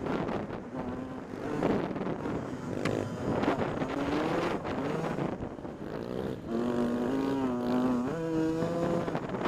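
125cc dirt bike engine revving up and down as the rider works the throttle and shifts. Its pitch climbs in short runs and drops back several times, heard through a helmet-mounted camera with wind noise.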